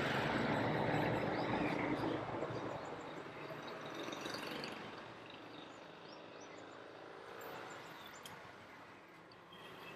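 Faint background hiss that fades away over the first few seconds, with a few faint high chirps like distant birds.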